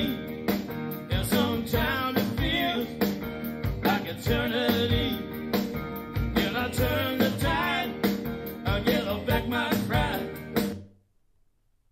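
A song with singing, guitar and a steady beat played back through a Harman Kardon Go + Play portable speaker. The music cuts off about eleven seconds in, leaving near silence.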